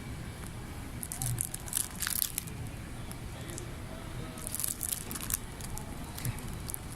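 Two spells of irregular crinkling and rustling, the first about a second in and the second near the middle, over a steady low background rumble.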